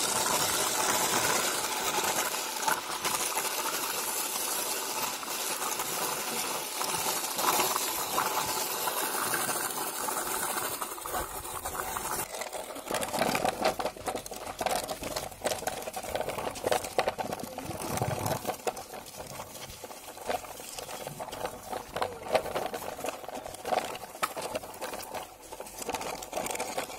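Plastic toy truck wheels rolling over dry dirt and grit: a steady grinding rattle for the first half, turning into rougher, faster crackling clicks about halfway through.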